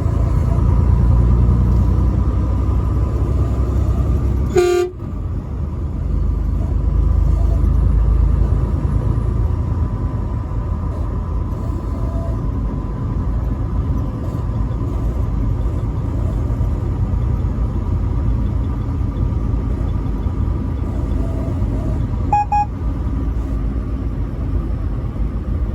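A truck's steady low engine and road rumble, with one short horn blast about five seconds in and a brief higher-pitched beep near the end.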